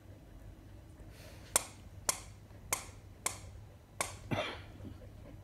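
A run of five sharp clicks, evenly spaced about half a second apart, followed near the end by a softer, longer rush of noise.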